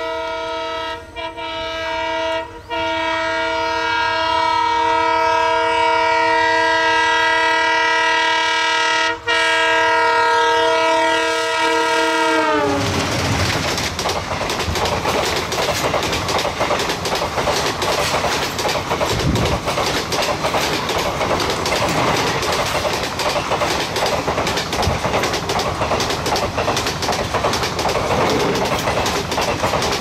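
Twin WDM-3A diesel locomotives blare their horn in one long multi-tone blast, broken only for moments, with the pitch dropping about twelve seconds in as the locomotives pass. Then the express's coaches rush by at speed with a fast clatter of wheels over the rail joints.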